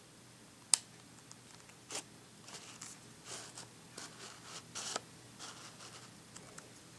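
Handling noises from a Canon EF-S 18-55mm kit lens being turned in the hands: one sharp click a little under a second in, then a run of short scrapes and scratchy rubs over the next few seconds.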